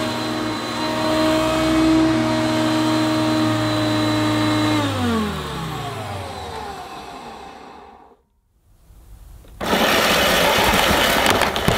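Hoover Concept One U4219 upright vacuum cleaner's motor running, very noisy, then switched off about five seconds in and winding down with falling pitch until it stops. After a short quiet gap, a loud rushing noise with no pitch to it fills the last two seconds or so.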